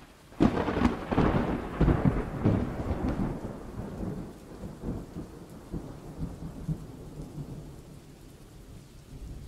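Thunderclap and rain sound effect: a sudden crackling crash about half a second in that rumbles away over some three seconds, leaving a steady hiss of rain.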